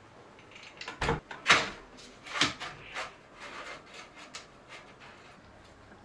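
Dropper seatpost being slid down into a mountain bike frame's seat tube: a handful of knocks and short scraping slides, the loudest about one and a half seconds in, then fainter clicks.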